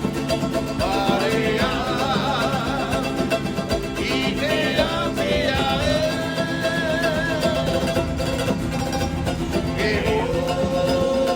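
Background music: a song with a singing voice over plucked guitar.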